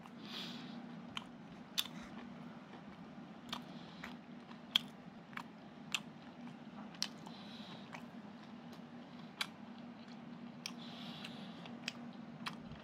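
Someone eating a meal: chewing, with sharp irregular clicks about once a second, over a steady low hum.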